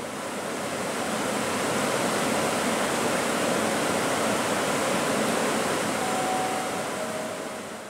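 Steady rushing noise from a standing EP07 electric locomotive, consistent with its cooling blowers running, fading in and fading out.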